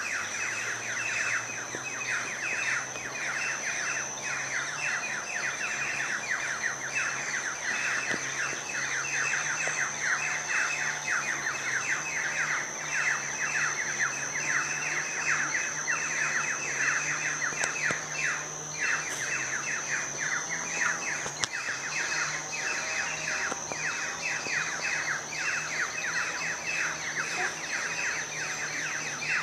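A dense chorus of small birds chirping rapidly, many short falling chirps overlapping without a break. A thin, steady high-pitched whine runs underneath.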